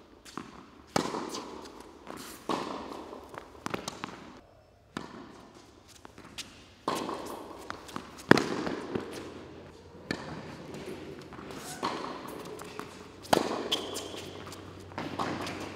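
Tennis ball struck back and forth by racquets in a baseline groundstroke rally, sharp pops of racquet hits and ball bounces about one every second and a half, each echoing in the indoor court.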